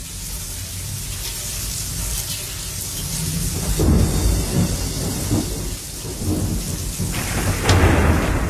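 Recorded rain with thunder rumbling, swelling about halfway through and again near the end: the sound-effect intro of a karaoke backing track for a rain song.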